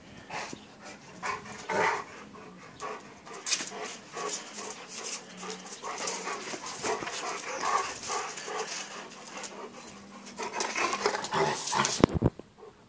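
A Dogo Argentino and a Leonberger panting and scuffling as they play-fight, with irregular breathy bursts. A sharp knock comes near the end.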